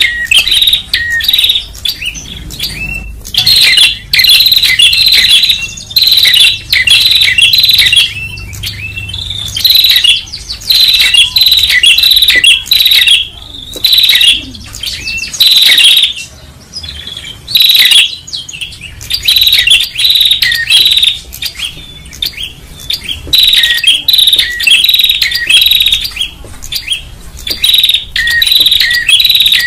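Tailorbird calls from a loud bird-lure recording: rapid, sharp chirps in bursts of a second or two, repeating with short pauses.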